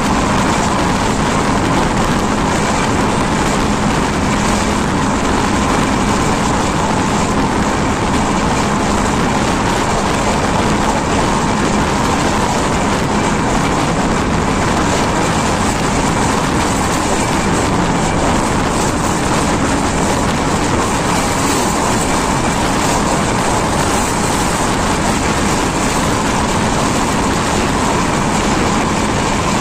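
Express passenger train running at speed, heard from a coach window: a steady, loud rush of wheel-on-rail rumble and moving air, with no distinct clickety-clack beat.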